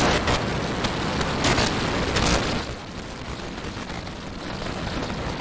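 Super Heavy booster's 33 methane-burning Raptor engines at liftoff: a steady, noisy rocket roar with sharp crackles. About three seconds in it drops to a lower, duller roar.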